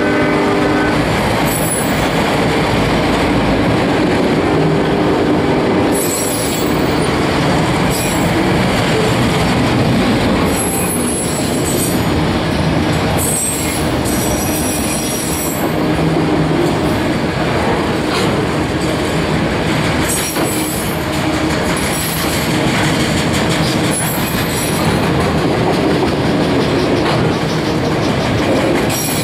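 Enclosed autorack freight cars rolling past at track side: a steady roar of steel wheels on rail, with high-pitched wheel squeal coming and going several times.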